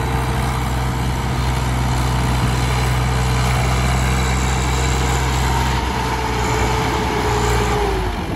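Swaraj 744 XT tractor's three-cylinder diesel engine running steadily under load; near the end its revs drop and the sound eases off.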